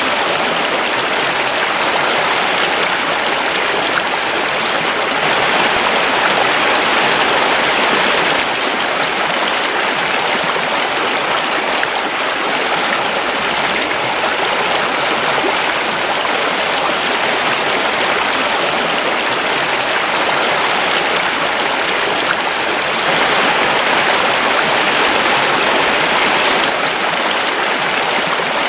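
River water flowing in a steady, continuous rush, swelling slightly a few seconds in and again near the end.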